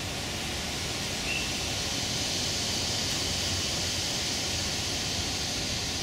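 Steady outdoor hiss with no distinct event, and one faint short high note about a second in.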